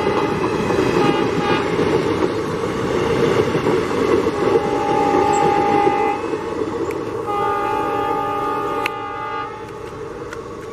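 WDG3A diesel locomotive with its 16-cylinder ALCO engine running, sounding its horn again and again: short toots at first, then two longer blasts in the second half. It is honking for signal clearance. The engine noise eases off near the end.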